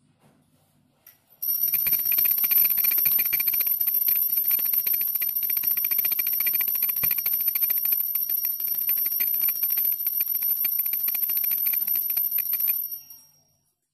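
Puja hand bell rung continuously with very rapid strikes, starting about a second and a half in and stopping abruptly shortly before the end.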